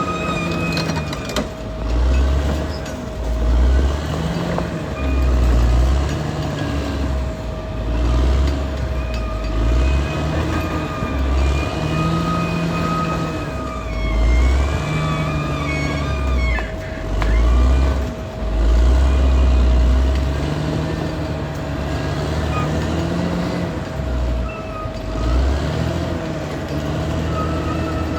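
Caterpillar D6R XL bulldozer's diesel engine working under load, its power swelling and easing every second or two, with a steady whine and intermittent high squealing from the machine.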